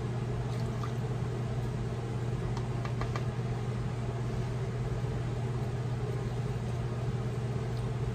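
Steady low background hum, with a few faint light clicks about half a second, three seconds and eight seconds in.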